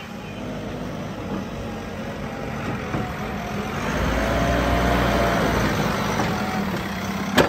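JCB 3DX backhoe loader's diesel engine running steadily, growing louder and heavier about four seconds in. A single sharp click near the end.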